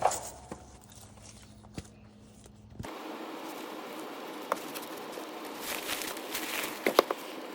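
Footsteps and scattered knocks of a person moving about. A steady low hum cuts off suddenly about three seconds in and gives way to a steady hiss.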